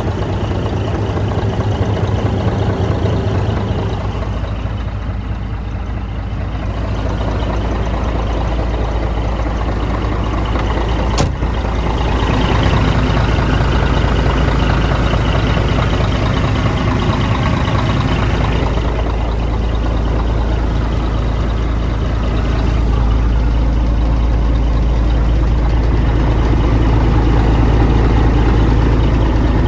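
Scania P124 truck's 12-litre inline-six diesel engine idling steadily with a deep low rumble. One sharp click about eleven seconds in.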